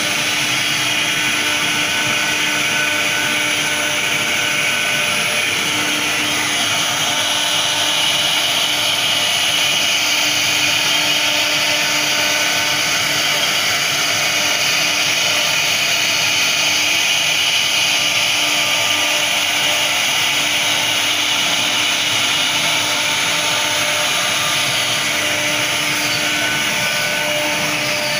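CNC router spindle running steadily while its bit carves a 3D relief into 70 mm-thick wood, a continuous whine over the hiss of the cut.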